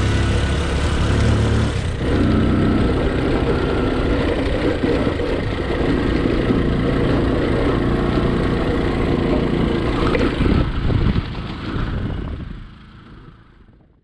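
Bajaj Discover 125 motorcycle's single-cylinder four-stroke engine running steadily as it rides along a rough dirt track. The sound fades out over the last two seconds.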